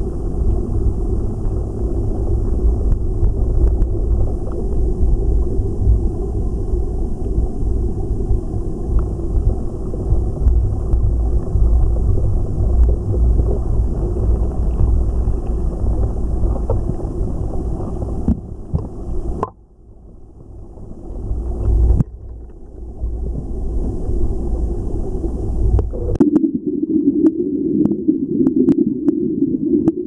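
Mountain stream water heard through a submerged camera: a muffled, steady low rumble and gurgle of flowing water. It drops away abruptly a little past halfway, then returns and changes character, with a few light clicks near the end.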